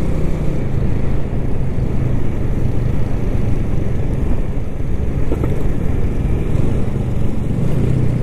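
Yamaha Lagenda motorcycle cruising at steady speed: a continuous engine drone mixed with wind and road noise.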